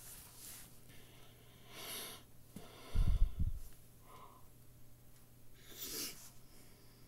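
A person's breath noises close to the microphone: a sharp breath in about two seconds in, then a hard burst of breath about a second later that thumps the microphone and is the loudest sound, and a shorter huff near the end.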